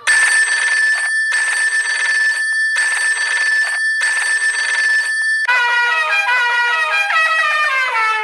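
Cartoon sound effect: a ringing tone pulsing four times with short gaps between, followed about five seconds in by a quick run of musical notes stepping down in pitch.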